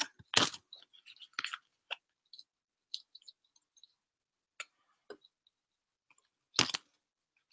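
Scattered short clicks and rustles from handling paper football stickers, with a louder one about half a second in and another near the end.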